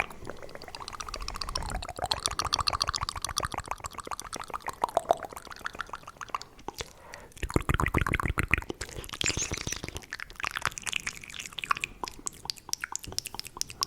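Fast, aggressive ASMR mouth sounds close to the microphone: a dense run of wet tongue and lip clicks and smacks, many a second, with a wavering tone through the first few seconds and a heavier, deeper stretch a little past the middle.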